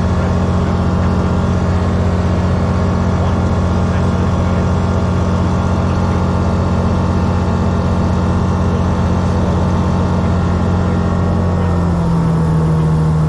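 Rotax 912 flat-four engine driving a constant-speed MT propeller on a Grob G109B motor glider, running steadily at cruise power, heard from inside the cockpit. Near the end the engine note drops in pitch.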